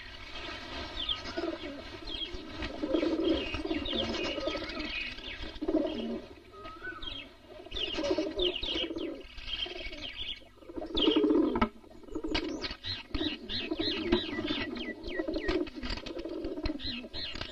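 Birds chirping and pigeons cooing, the quick chirps growing thick and fast from about twelve seconds in.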